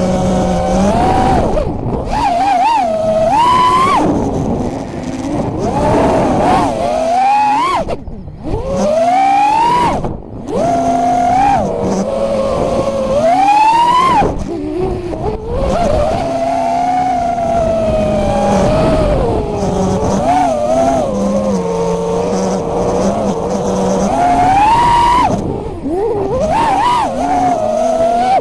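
FPV quadcopter's brushless motors and props whining, the pitch rising and falling again and again as the throttle is worked, with several quick sharp climbs. The whine has an odd, strange edge that goes with jello in the footage.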